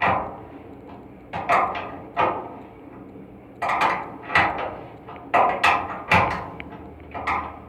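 A hand tool knocking on the metal of an air handling unit's blower assembly. The sharp knocks come in groups of two or three about every two seconds, each ringing briefly.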